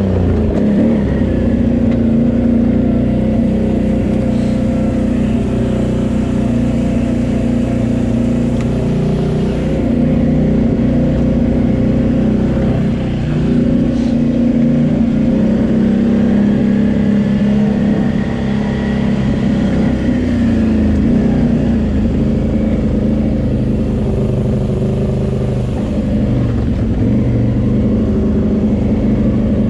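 Can-Am Renegade 800 ATV's V-twin engine running steadily under way on a trail, its pitch rising and dipping a little as the throttle changes.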